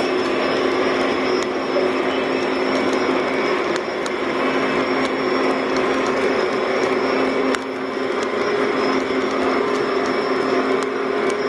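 Lionel O-scale three-rail model freight cars rolling past on the track: a steady rumble of wheels on rail with occasional sharp clicks, over a steady low hum.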